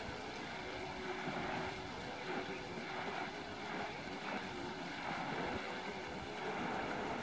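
Shallow river water flowing over rocks and through riffles: a steady rushing wash.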